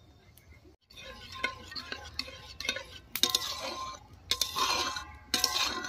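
Flat metal spatula stirring thick tomato sauce in a metal karahi, scraping the pan in repeated strokes with metallic clinks and a ringing squeak from the metal. It starts about a second in.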